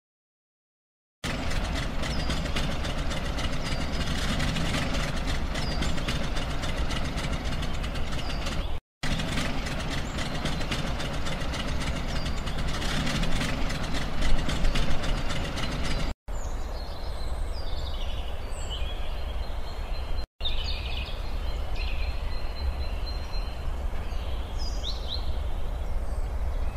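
Tractor engine running steadily, with the sound cut off briefly a few times. In the last third, birds chirp over a low steady rumble.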